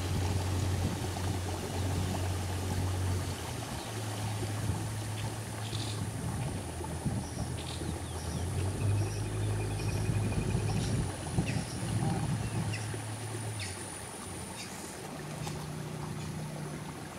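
Small boat's outboard motor running at low speed, with water washing along the hull. About three-quarters of the way through, the motor note drops and quietens as the boat slows.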